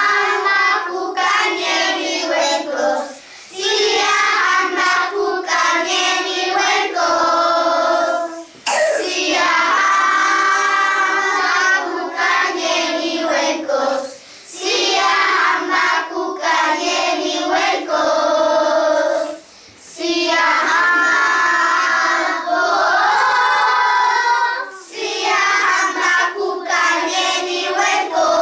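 A group of young children singing together in unison, with no instrument heard. The song runs in phrases broken by short pauses for breath about every five seconds.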